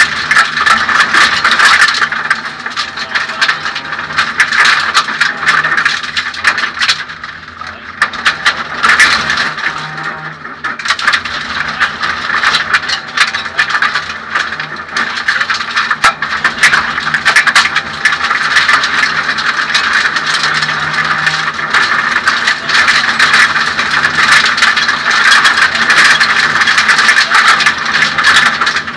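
Suzuki Swift 1600 N2 rally car heard from inside its stripped cockpit at speed: the four-cylinder engine running hard under a constant rattle and many sharp clicks from the cabin and body. The engine briefly drops off about seven seconds in, then picks up again.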